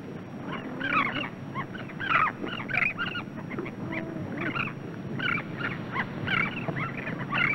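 Terns calling: a run of short, repeated calls, roughly one or two a second.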